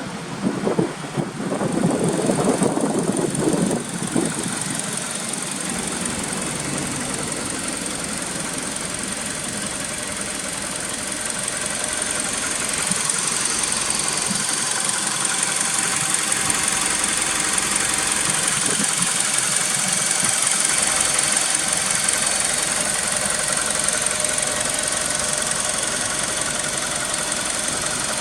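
Honda Integra Type S (DC5) 2.0-litre four-cylinder idling through an aftermarket exhaust. It is uneven for the first few seconds, then settles to a steady idle that grows slightly louder about twelve seconds in.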